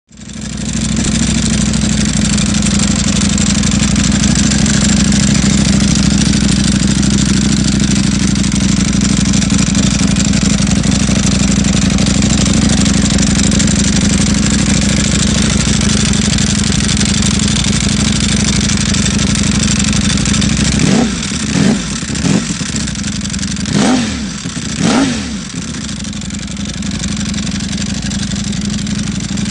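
Ducati Panigale superbike with an Akrapovič exhaust idling steadily. About two-thirds of the way through it gives four quick throttle blips, each revving up and dropping back, then returns to idle.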